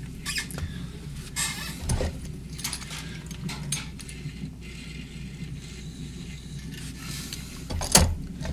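Electric potter's wheel running with a steady low hum. A coggle rolled and hands rubbed against the spinning wet clay pot make short bursts of scraping, and a sharp knock sounds near the end.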